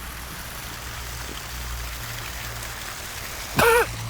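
Small waterfall of outflow water spilling into a stream, a steady rushing trickle. Near the end comes one short, loud, wavering call.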